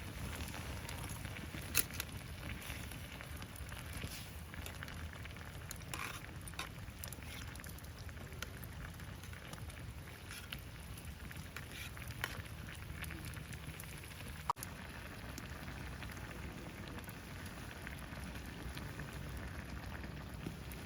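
Wood campfire burning with a steady hiss and scattered crackles and pops, two of them louder, about two seconds in and just before the middle of the clip.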